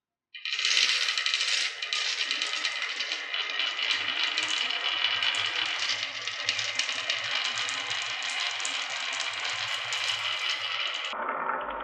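Many marbles rolling and clattering down a wooden HABA marble-run track: a dense, continuous rattle of small clicks. It starts abruptly about half a second in and changes suddenly shortly before the end.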